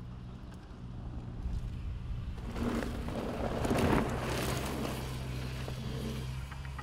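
A mountain bike passing close on a dirt trail: a rush of tyres on dirt swells up and fades, loudest about four seconds in, over a steady low engine hum.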